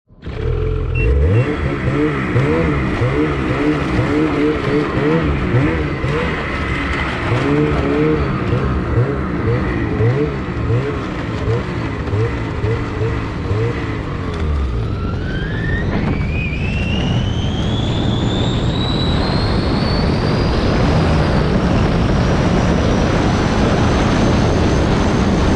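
Snowmobile engine heard from the rider's seat, its revs rising and falling repeatedly at low speed for the first fourteen seconds or so. Then the pitch climbs steadily as the sled accelerates and holds at high revs near the end.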